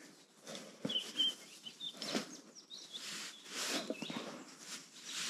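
Rustling of sleeping bag and tent fabric and a hand rubbing a dog's fur, in a series of soft scuffs, with a few faint high chirps in between.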